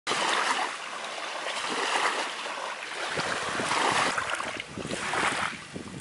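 Small waves lapping and washing over a rocky estuary shore, swelling and ebbing every second or two.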